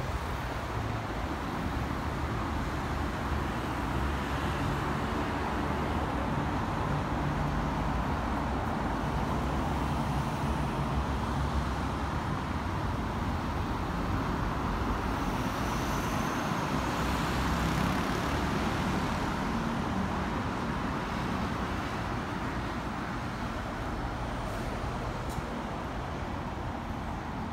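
Steady road traffic noise from cars and trucks passing on a busy road below, with engine hum rising and falling as vehicles go by.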